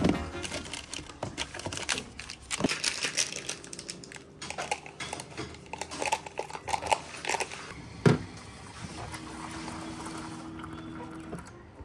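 Close crackling and crunching from a caramelized-biscuit or dark-chocolate snack, with one sharp knock about eight seconds in. After that comes a faint steady hum.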